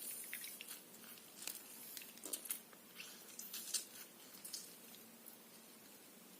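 Faint scattered small clicks and squishes of a kaffir lime being squeezed by hand over a glass of red ginger decoction.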